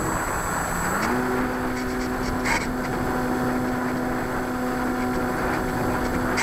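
RC model airplane's motor and propeller heard from on board during takeoff: the hum rises in pitch about a second in as the throttle comes up, then holds steady over a rush of wind noise as the plane climbs away. A short click about two and a half seconds in.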